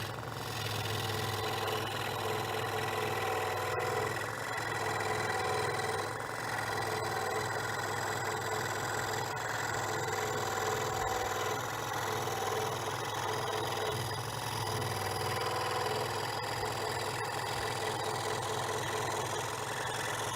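Harbor Freight Central Machinery 16-inch scroll saw running steadily, its motor humming and blade reciprocating.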